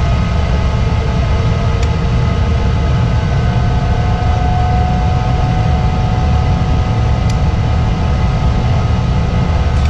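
Lennox EL296 two-stage gas furnace running on high fire: a steady low rumble with a few thin steady tones on top and a handful of faint clicks. The high-fire pressure switch is dropping in and out, which the technician takes for a bad switch.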